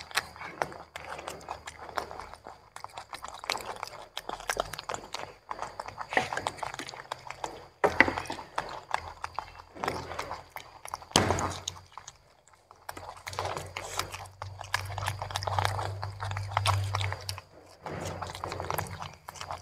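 Young macaques chewing and biting into broccoli florets and carrot, with many small irregular clicks of eating, and two sharp knocks, the loudest sounds, about eight and eleven seconds in.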